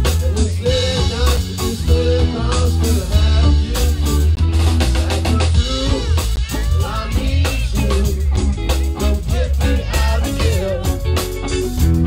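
Live band playing: electric guitars and bass over a drum kit, with a steady beat.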